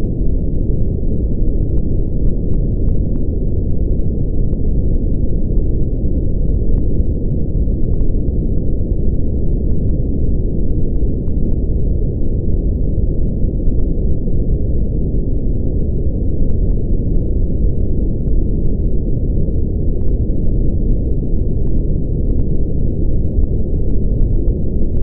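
Brown noise: a steady, even, deep rumble, strongest in the lows and fading toward the highs, with nothing above about 1 kHz.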